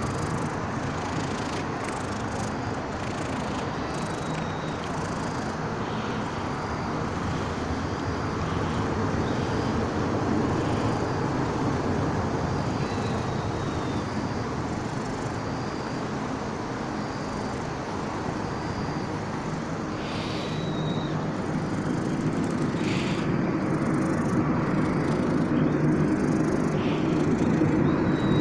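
Steady outdoor background noise, with a few faint high chirps.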